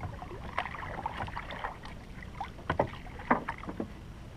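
Water lapping and splashing against the hull of a small outrigger canoe, with a few sharp clicks and knocks, most of them in the second half.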